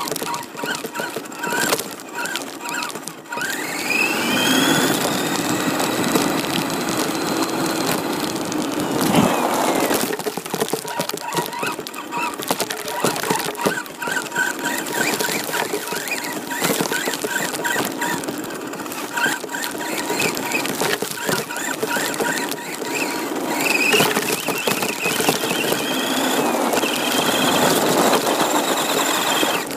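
RC car's motor whining, rising in pitch as it speeds up, over a steady rough rattling noise of the car on the move.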